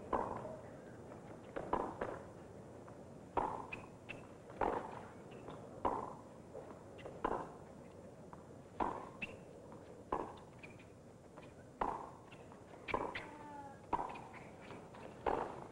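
Tennis ball being struck with rackets and bouncing on a hard court during a point, a sharp pop every second or so. A short squeak comes near the end.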